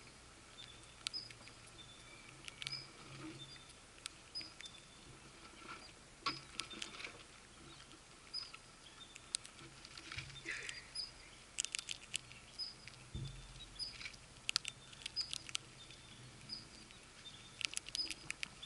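Ground squirrels nibbling and crunching food close to the microphone: scattered sharp clicks that come in quick clusters several times.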